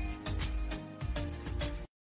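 Background music with a steady drum beat that cuts off suddenly near the end.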